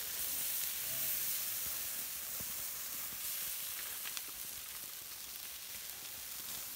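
A burning pile of matches hissing steadily, with a few faint crackles; the hiss slowly fades.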